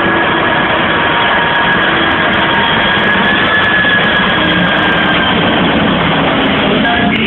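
Jet airliner's engines on final approach for landing: a loud, steady rushing noise with a thin whine that drifts slightly in pitch.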